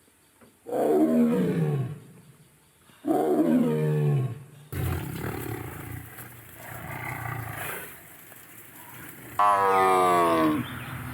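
Tiger roaring: two loud roars that each fall in pitch, then a rougher, noisier stretch, then a third falling roar near the end.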